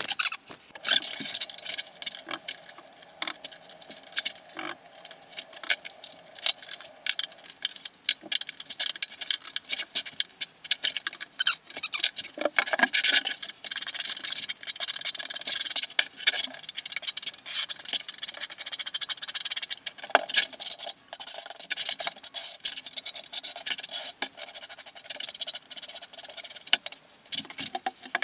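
Tiling work played back sped up: a steel notched trowel scraping and combing thinset mortar, with a dense run of rapid scrapes and small clicks from tools and tiles being handled.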